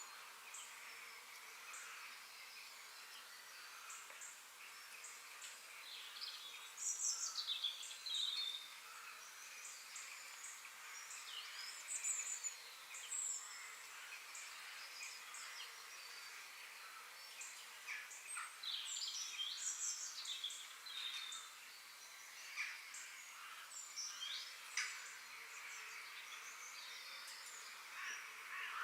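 Forest ambience: several birds singing and calling in short, high, sliding phrases that come and go throughout, over a steady high background hiss.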